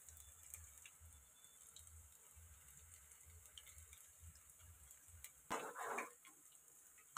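Near silence: a faint low hum with scattered faint ticks, and a brief louder rustle a little over five seconds in.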